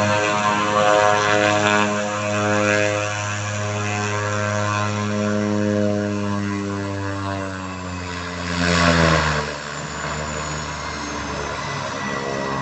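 Thrush 510P agricultural plane's turboprop engine and propeller running as it taxis past close by. The engine drone falls gradually in pitch, rises to a loud rushing swell about nine seconds in as the plane comes nearest, then settles to a lower, steadier drone with a thin high turbine whine.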